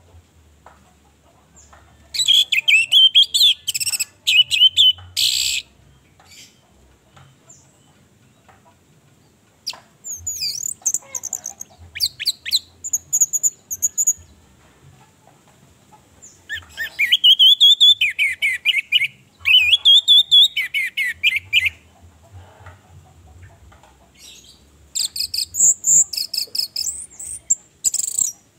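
Orange-headed thrush singing: four bouts of loud, varied, high warbling phrases, separated by pauses of a few seconds.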